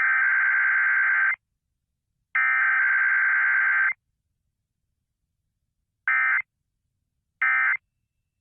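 Emergency Alert System SAME data bursts: harsh digital warbling tones that start and stop abruptly. There are two long bursts of about a second and a half each, then, after a gap of about two seconds, two short bursts a little over a second apart.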